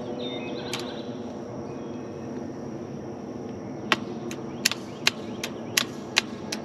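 Sharp metal clicks, about eight in quick, uneven succession starting partway through, as a wire fence clip is worked onto a steel T-post. A steady low background hum runs underneath.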